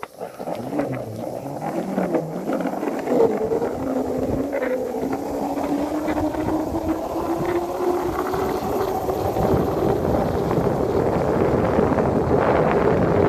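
Skateboard wheels rolling down a concrete road: a steady rumble with a faint hum that rises in pitch and grows louder as the board picks up speed, with a few knocks near the start.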